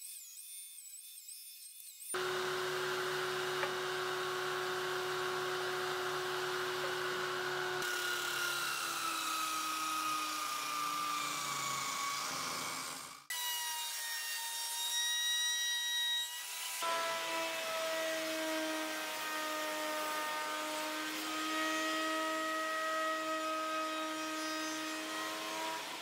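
Table-mounted wood router running with a steady high whine while its bit shapes the edges of wooden boards, the pitch sagging as the bit takes the load. The sound cuts off abruptly twice and picks up again.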